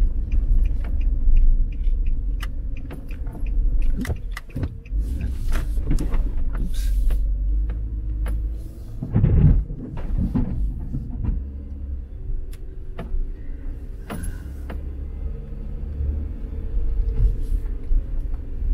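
Car driving slowly, heard from inside the cabin: a steady low engine and tyre rumble, with scattered light clicks and knocks and a brief louder swell a little over nine seconds in.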